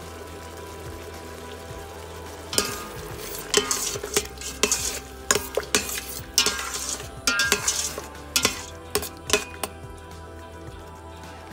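Utensil stirring thick, sizzling tomato sauce in a metal pot, with irregular scrapes and clicks against the pot. The stirring starts about two and a half seconds in and stops a couple of seconds before the end.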